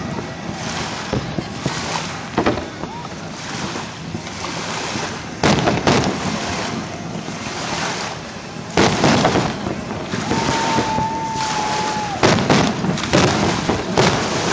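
Aerial fireworks shells bursting: several sharp booms with an echoing rumble, starting about five seconds in and coming thicker near the end, over wind noise on the microphone. A steady whistle lasts about two seconds, ten seconds in.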